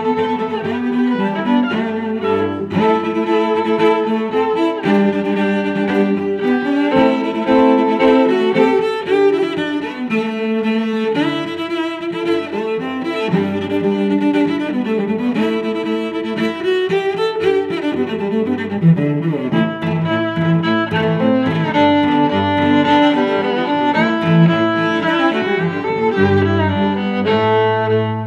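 Instrumental background music: a melody moving over held lower notes.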